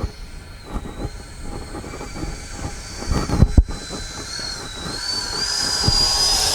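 Twin 70 mm electric ducted fans of an SU-30 model jet whining in slow flight, the pitch wavering, then rising and getting louder about five seconds in. Strong wind buffets the microphone with heavy thumps and rumble throughout.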